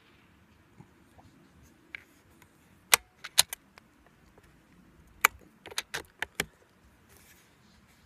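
Two clusters of short, sharp metallic clicks, the first about three seconds in and the second from about five to six and a half seconds in: the bolt of a .25 Benjamin Marauder PCP air rifle being worked to chamber the next pellet between shots.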